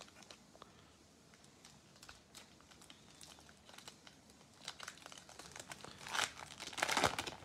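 Baseball card pack wrapper being torn open by hand, with faint crinkling that builds to louder rips and crackles near the end.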